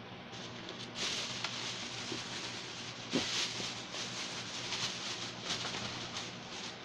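Paper and plastic rustling and crinkling as items are handled and rummaged through, with a few light knocks, over a faint steady low hum.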